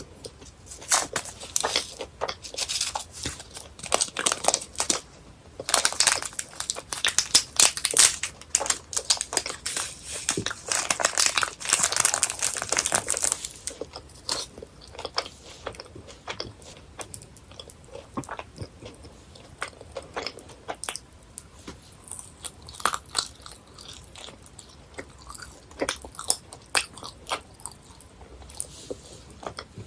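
Close-miked chewing of chewy gummy jelly candies, with wet, clicky mouth sounds. The chewing is dense and loud for the first half, then slower and quieter.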